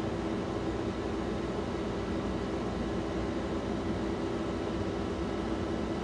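Window air conditioner running steadily under load, a constant fan rush with a low steady hum.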